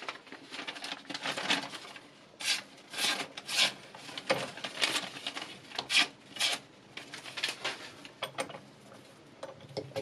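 Sheets of paper rustling in irregular bursts as they are handled and sliced with a freshly sharpened knife blade, a paper-cutting test of the edge.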